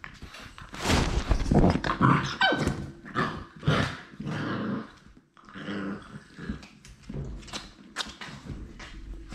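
Labrador retriever puppies growling and giving short barks while they play, in uneven bursts with a brief lull about halfway. Close-up rubbing and knocking of a puppy's fur and body against the microphone runs through it.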